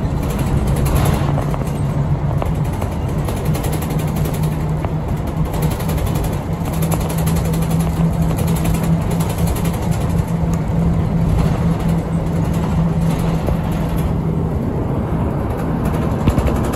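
Shimabara Railway route bus in motion, heard from inside the cabin near the front: a steady low engine hum over continuous road and tyre noise.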